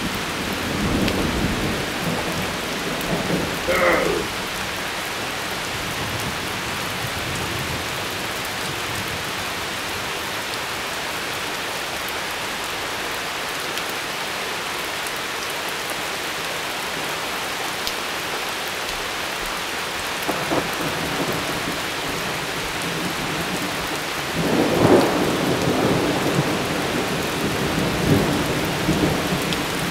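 Steady heavy rain with rolling thunder: one rumble in the first few seconds and a longer one from about twenty-four seconds in.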